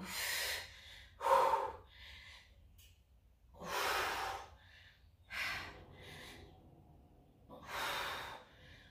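A woman breathing hard from exertion after push-ups: about five deep breaths, in through the nose and out through the lips, one every second and a half or so.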